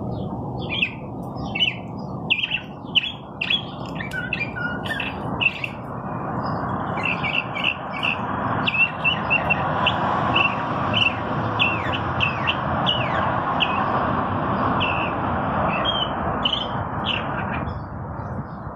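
Mockingbird singing: a varied string of short, sharp notes, then from about seven seconds in a long run of quick repeated notes, over a steady background rush.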